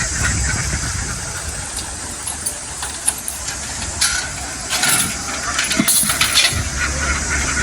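An engine running with a low rumble that eases off in the middle and comes back strongly near the end, under a steady hiss and scattered light clicks.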